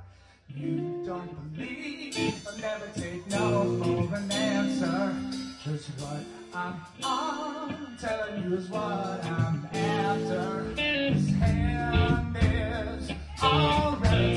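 Rock band playing live, led by guitar. A brief near-silent gap at the start, then the song starts, and the bass and drums get much heavier about eleven seconds in.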